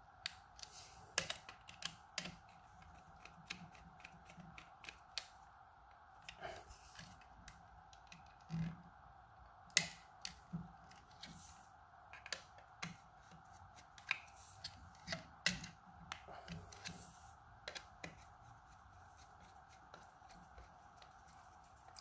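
Faint irregular clicks and small knocks of a screwdriver and fingers working the terminal screws and cables of a plastic USB power point as the wires are fitted into the terminals.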